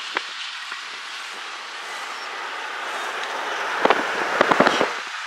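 Steady road and wind noise from a car driving along, with a few sharp knocks about four seconds in.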